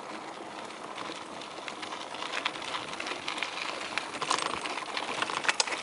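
A bicycle's knobby tyres rolling over a loose gravel dirt road, crunching on stones, with many scattered clicks and rattles that grow busier and louder over the last couple of seconds.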